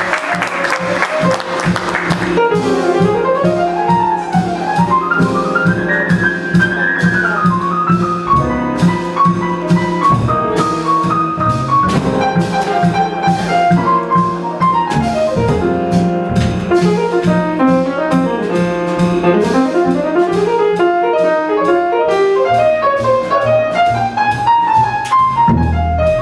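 Live small-group jazz on piano, upright bass and drum kit: fast rising and falling melodic runs over a steady bass line and ride cymbal. Applause dies away in the first two seconds.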